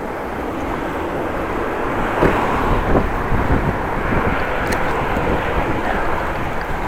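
Steady rumble of wind and road noise from a bicycle being ridden, with faint small rattles now and then.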